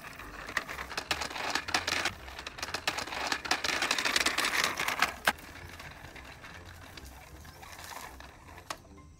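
Dry crackling and rustling with many sharp clicks for about five seconds, ending in a sharp click, then fainter rustling with a few more clicks.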